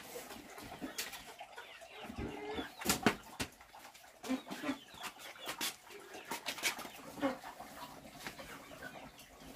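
Chickens clucking, with scattered sharp knocks and clatter from firewood and a large metal cooking pot being handled; the loudest knock comes about three seconds in.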